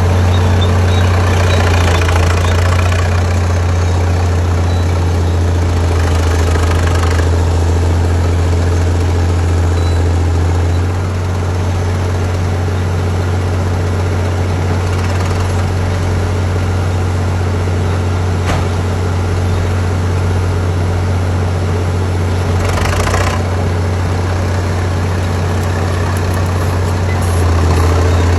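Engine of a vintage track loader without hydraulics, running steadily with a deep hum. It eases off slightly about eleven seconds in and picks up again near the end.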